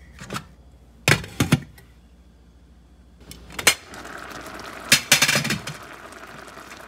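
A glass pot lid knocking and clinking against a frying pan in a few sharp strikes. From about four seconds in, tomato sauce simmers with a steady bubbling hiss, and the lid clinks again about a second later.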